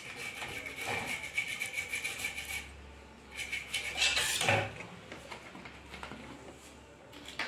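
Toothbrush scrubbing the aluminium heat sink and circuit board of an inverter welding machine's driver card with thinner, cleaning off old heat-sink compound. Rapid back-and-forth brushing strokes for the first two and a half seconds, a second short burst about four seconds in, then fainter.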